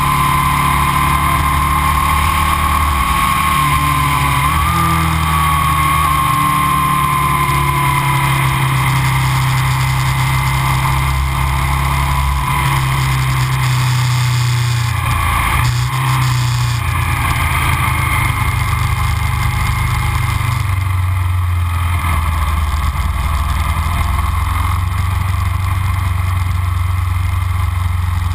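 Aprilia RSV 1000's 998 cc V-twin with aftermarket Arrow silencers running under way, recorded from an onboard camera; the engine note shifts about halfway through as the rider eases off and picks up speed again.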